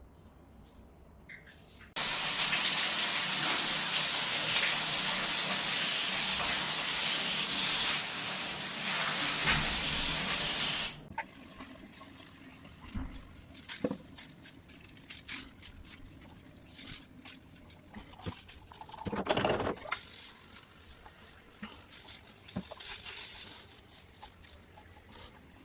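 A water jet spraying hard, switched on about two seconds in and cut off suddenly some nine seconds later. Quieter scattered knocks and clicks follow.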